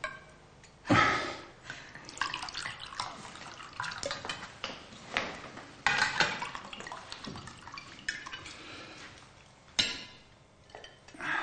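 Wine pouring from a glass bottle into stemmed wine glasses, in a few separate pours that each start suddenly, with light clinks of plates and glass.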